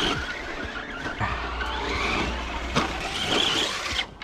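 Traxxas Slash RC truck's electric motor whining up and down with the throttle as it drives over dirt jumps, with its tyres scrabbling over dirt and leaves.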